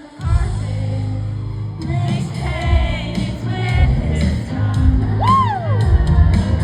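Live pop band playing loudly with sung vocals, as heard from the audience. The full band comes in hard just after the start, and a sung note slides up and back down about five seconds in.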